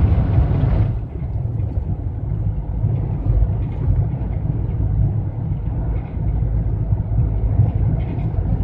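Steady low drone of a GAZelle van cruising at highway speed, engine and tyre noise heard from inside the cab.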